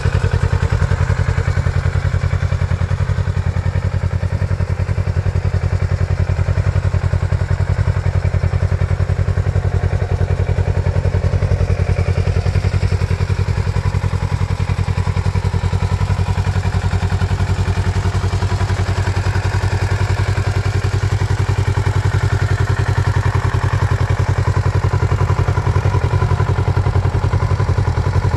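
Kawasaki Z650RS's 649 cc parallel-twin engine idling steadily with an even, rapid low pulse.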